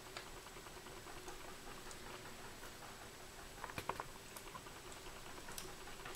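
Faint small clicks and taps of a folding knife and its small metal parts being handled during disassembly, the handle scales coming off. A quick cluster of louder clicks comes about four seconds in.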